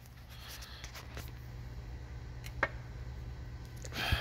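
Handling noise from the phone being moved and gripped, over a steady low hum, with a few faint clicks and one sharper click about two and a half seconds in; the handling rubs louder near the end.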